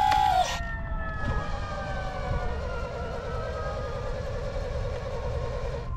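Electric motor whine from an RC construction model. Its pitch drops sharply about half a second in, then slides slowly downward with a warbling tone, over a low rumble.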